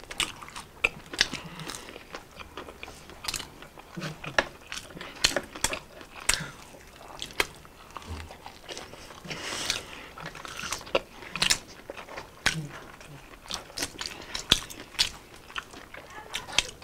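Close-miked eating: crisp bites into breaded fried chicken and chewing, many sharp irregular crunches.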